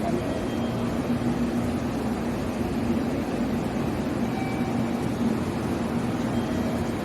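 Steady mechanical hum of a train at the station, with a constant low tone under an even rumble and no changes.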